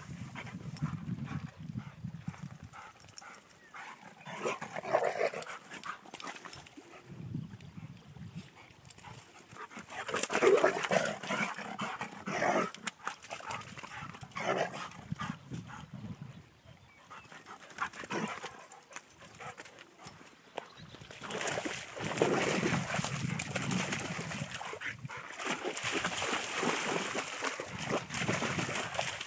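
Excited dogs whining and barking in intermittent bursts, with water splashing in the last several seconds as they swim.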